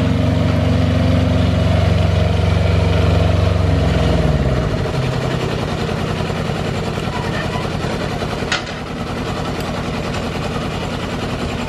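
Onboard engine of a 7¼-inch gauge Class 47 diesel-outline miniature locomotive idling steadily, then shut off about four seconds in, its pitch sinking as it runs down to a stop. A single sharp click follows a few seconds later.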